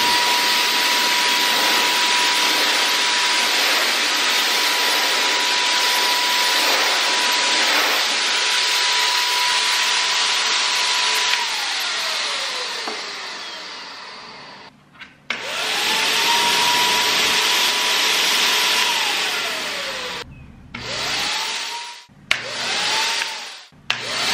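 Wagner handheld HVLP paint sprayer's turbine motor running with a steady high whine and rush of air, winding down after about eleven seconds, then running again for a few seconds and in several short bursts near the end. It runs but sprays no paint at all, as the can is held to the sprayer without the sealed cup it needs for suction.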